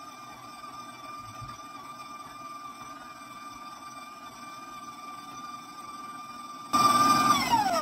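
KitchenAid stand mixer motor running with a steady high whine while its beater creams butter and sugar. Near the end it turns much louder all at once, then the whine falls in pitch as the mixer is switched off and winds down.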